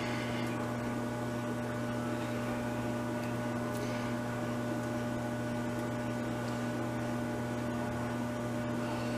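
A steady low electrical hum, even in level throughout.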